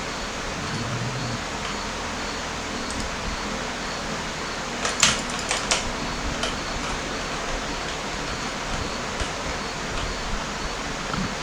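Steady hiss-like background noise, with a few sharp clicks about five seconds in.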